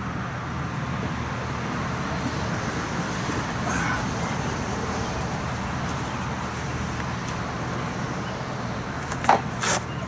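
Steady outdoor background noise, much like distant road traffic, with two short sharp knocks close together near the end.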